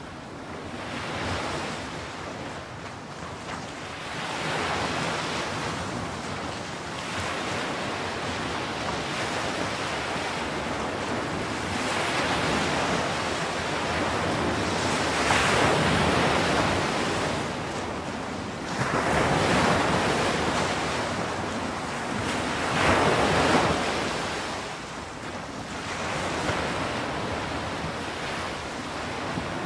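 Ocean surf breaking on a sandy beach, swelling and washing in every few seconds, loudest surges about halfway through and again two-thirds of the way in, with wind buffeting the microphone.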